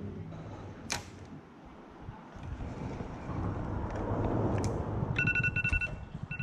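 A sharp click about a second in over low rumbling noise, then from about five seconds in an electronic ringing tone: a rapid trilling beep on two steady pitches, like a phone ring.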